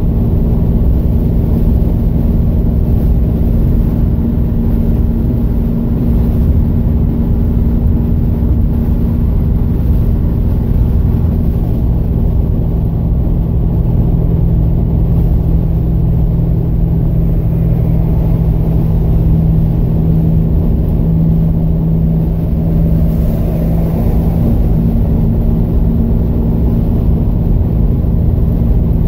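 Plymouth Scamp cruising at highway speed, heard inside the cabin: a steady drone of engine and road noise with a constant low hum.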